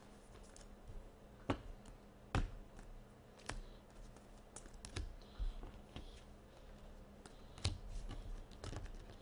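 Trading cards being handled: cards flicked, tapped together and set down on a desk, making scattered light clicks and taps.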